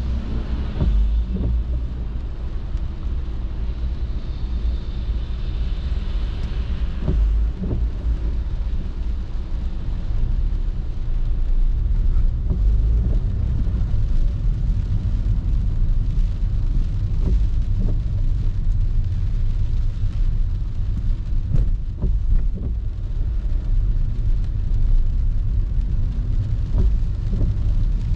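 Inside a car driving in the rain: a steady low rumble of engine and road with the hiss of tyres on wet pavement, and occasional light knocks. It grows a little louder about halfway through as the car moves with the traffic.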